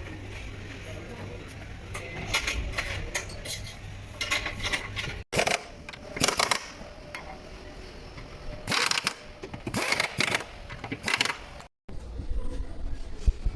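Metal tools and parts clinking and rattling in short, irregular bursts over a low hum, with two abrupt cuts in the sound.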